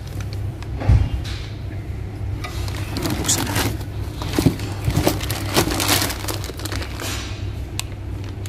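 Clear plastic wrapping crinkling and rustling in irregular bursts as it is handled and pulled off a clutch and flywheel assembly in a cardboard box, with a dull thump about a second in. A steady low hum runs underneath.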